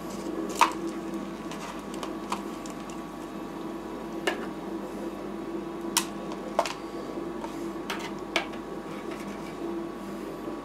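Metal tongs clicking and scraping on the steel cold plate of a rolled-ice-cream machine as ice cream rolls are picked up, a handful of sharp clicks with the strongest about half a second in. Under them runs the steady hum of the machine's cooling unit.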